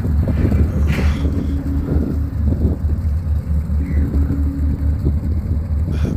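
Engine running at idle: a loud, low rumble that pulses evenly at about four to five beats a second.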